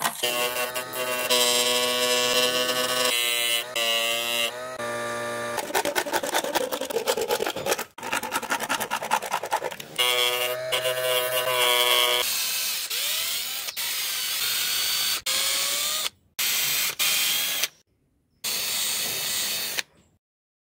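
Small power tools working grey PVC in a run of short, abruptly cut clips: a small motor spinning a sanding disc with a steady whine as a PVC part is ground against it, and a drill boring the part with a step bit in short bursts. The tools stop near the end.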